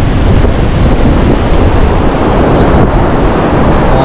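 Strong wind buffeting the microphone, over the steady wash of sea surf breaking on the beach.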